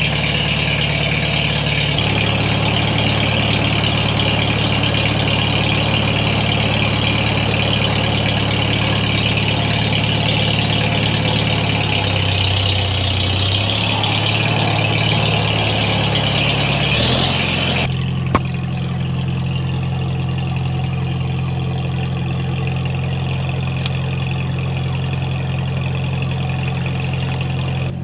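Farmall H tractor's four-cylinder gasoline engine idling steadily, its pitch shifting briefly a little before halfway. About two-thirds of the way in the sound changes suddenly and runs on duller, with much less treble.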